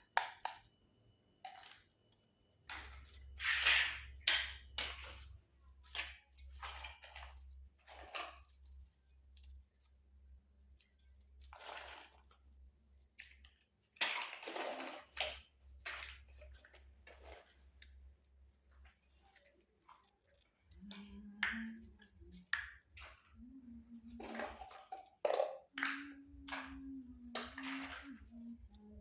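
Small toy kitchen pieces clicking and clattering as they are handled and set down, in scattered separate knocks.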